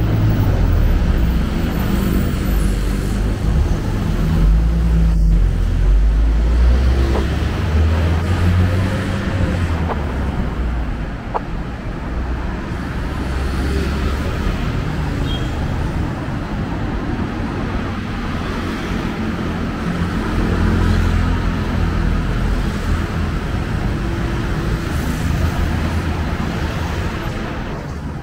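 Busy city street traffic: motor vehicle engines running close by with a deep low rumble over steady road noise, swelling in the first ten seconds and again about twenty seconds in.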